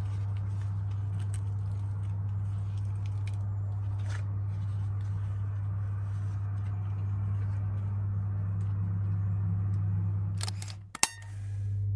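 Flaky layered flatbread being torn and pulled apart by hand, with faint scattered crackles, over a steady low hum. Near the end the hum briefly drops out and a quick cluster of sharp clicks sounds.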